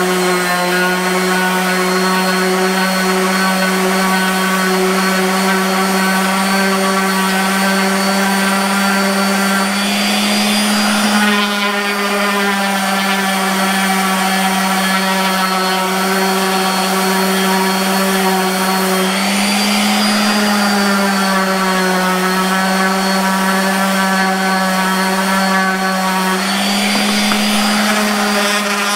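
Electric random orbital sander with 220-grit paper running steadily as it sands a thin luan plywood throat plate flush. Its motor hum rises slightly in pitch three times, about ten, nineteen and twenty-six seconds in, then settles back.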